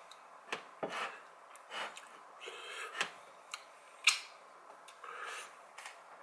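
Close-up mouth noises of someone licking and sucking food off his fingers: a string of wet lip smacks and sharp clicks, the loudest about four seconds in.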